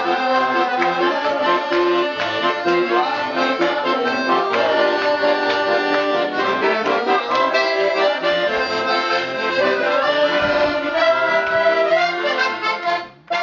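Two accordions playing a tune together, with held notes and chords. The music drops away near the end.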